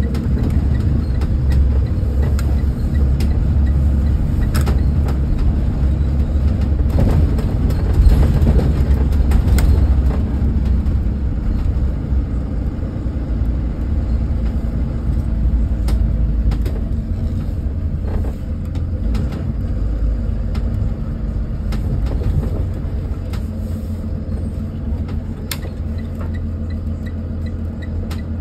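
School bus diesel engine running, heard from the driver's seat as a heavy low rumble with a few sharp clicks and rattles. It is loudest about a third of the way in and grows gradually quieter over the second half.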